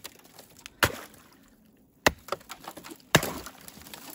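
Axe chopping at the edge of a hole in thin ice over water: three main sharp blows about a second apart, the last the loudest, with a few lighter knocks between them.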